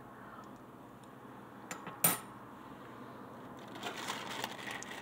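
Handling of a plastic microwave meal tray and its film: a sharp click about two seconds in, then light crinkling of the plastic film being moved near the end.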